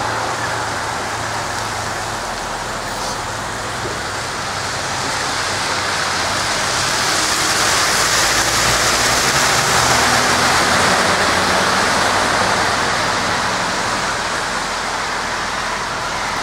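Road traffic on a wet, snow-covered road: a steady hiss of tyres on slush that swells as a truck passes close about halfway through, over a low engine hum.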